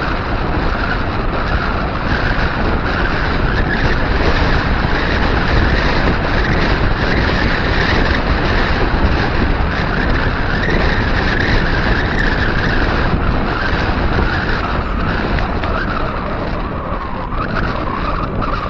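Steady wind rushing over the action camera's microphone, mixed with the rolling noise of wide 700x45c tyres on a concrete road, while cycling at about 20 mph.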